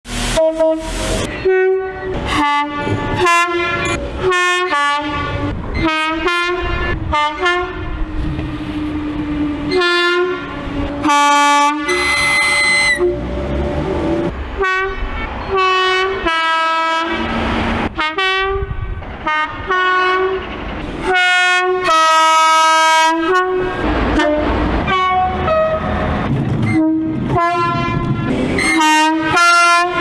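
A rapid succession of two-tone train horn blasts from British trains, mostly short high–low pairs sounded one after another. There is a longer held note and a brief, higher whistle-like tone near the middle, with train running noise between the blasts.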